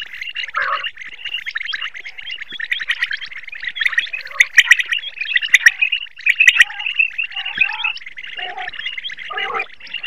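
Common quail calling: a dense, rapid run of high chirping notes, loudest around the middle, with a few short lower notes in between.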